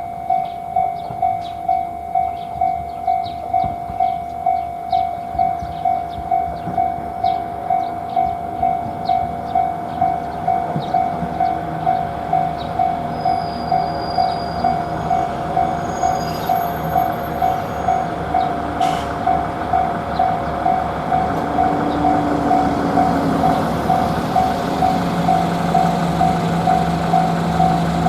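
Japanese railroad crossing bell ringing its repeated electronic kan-kan tone, a little under two strikes a second. A train's rumble swells through the second half as it approaches, with a low steady drone joining near the end.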